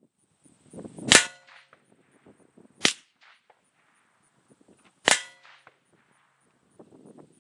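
Steel target plate struck by 7.62x54R rifle bullets: three sharp metallic clangs about two seconds apart, the first and last ringing on briefly.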